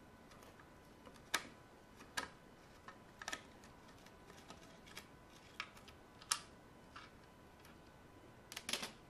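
Irregular sharp clicks and taps of hard plastic, about one a second, with a quick cluster near the end, as the plastic casing of an Electrolux ESI4005 steam iron is handled and worked loose by hand.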